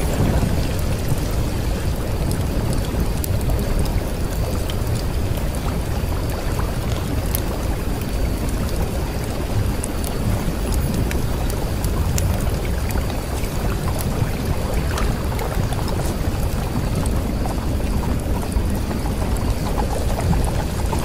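Steady rushing noise like rain or pouring water, heaviest in the low end, with scattered faint clicks.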